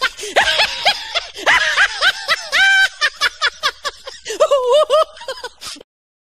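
Laughter sound effect: a quick run of short, high-pitched laughs that cuts off suddenly near the end.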